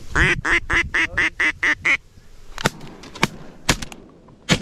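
A rapid run of about eight duck quacks, some four a second, followed by a few sharp clicks or knocks.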